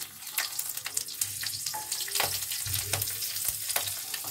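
Whole spices (bay leaf, green chilli, dried red chilli and panch phoron seeds) sizzling and crackling in hot oil in a karahi, as the tempering (phoron) hits the oil. A spatula stirs through them.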